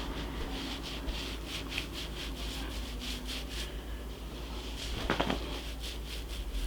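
Fingertips massaging butter into the scalp between braids: a run of short scratchy rubbing strokes, about three or four a second, with a brief louder sound about five seconds in.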